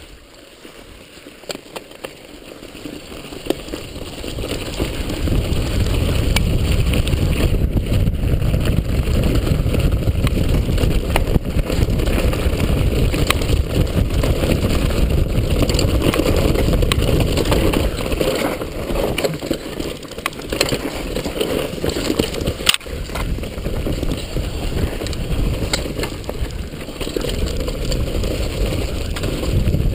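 Wind rushing over the microphone and tyres rumbling over rough dirt as a downhill mountain bike picks up speed over the first few seconds, with a few sharp knocks and rattles from the bike hitting bumps.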